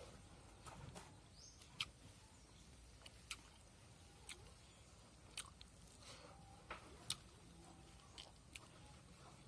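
Faint chewing and mouth sounds of a person eating rice and curry by hand, with a dozen or so small sharp clicks scattered through it.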